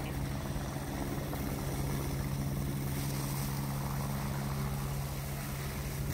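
An engine running steadily, a low even hum that holds one pitch throughout.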